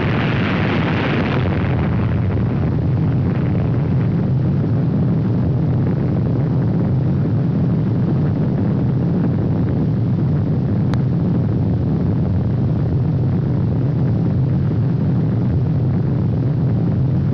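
Steady, loud low rumble of a nuclear bomb blast, with a hiss over it for the first couple of seconds that dies away. A single sharp click comes about eleven seconds in.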